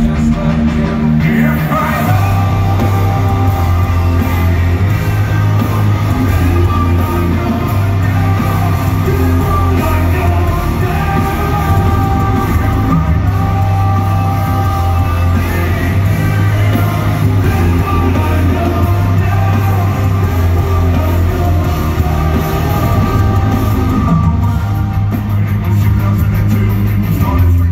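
Rock band playing live with lead vocals, electric guitars, bass and drums, loud and steady, heard from the seats of an arena.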